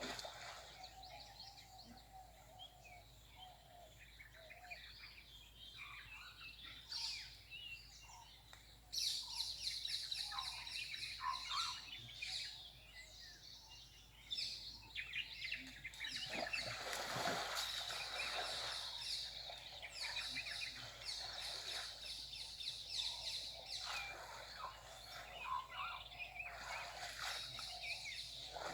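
Birds calling and chirping, with long spells of fast, high trilling. A brief rush of noise comes about two-thirds of the way through.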